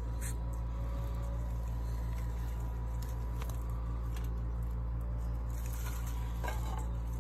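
A steady low hum underlies faint, irregular crunching clicks: a Jackson's chameleon chewing a superworm.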